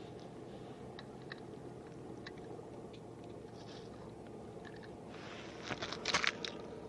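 Faint scattered ticks, then a short burst of crunching about five seconds in, over a steady low background noise.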